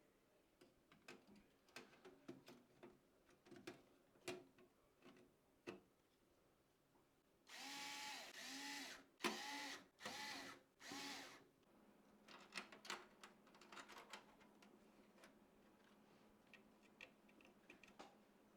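Small electric screwdriver whirring in about four short bursts, its pitch rising and falling as it spins up and stops, driving screws in a PC build. Light clicks of small parts and screws being handled come before and after it.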